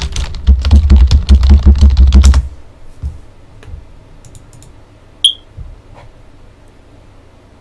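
Fast typing on a computer keyboard, a quick run of clacking keystrokes with heavy thumps, for about two and a half seconds. Then a few scattered single clicks, one of them sharp and high a little past five seconds in.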